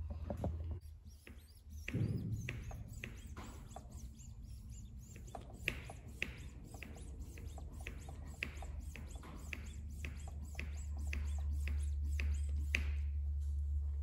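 Hand-operated plastic transfer pump being stroked up and down, its plunger and valves clicking and squeaking about once or twice a second, over a low steady hum.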